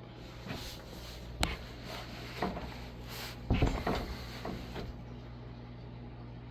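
Vintage Casablanca Victorian ceiling fan's K63 motor humming steadily at low speed. A sharp click comes about a second and a half in, then several knocks and clatters, the loudest around three and a half seconds in, which stop by about five seconds.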